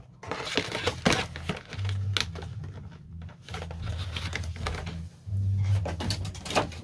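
Rustling and light clicks of small items being handled and set down, over a steady low hum.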